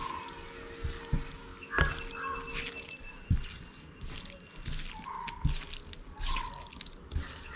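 Raw chicken pieces squelching and slapping as a bare hand mixes them with salt and chilli powder on a steel plate, in irregular wet squishes and small knocks.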